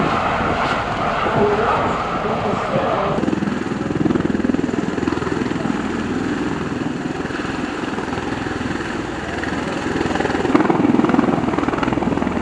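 Marine Corps MV-22 Osprey tiltrotor hovering in helicopter mode: steady, loud rotor and twin turboshaft engine noise.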